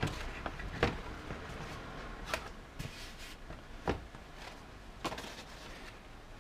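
About five separate sharp knocks and clicks, roughly a second apart, as a heat-formed sheet of PVC foam board is handled and knocked against a metal-topped workbench.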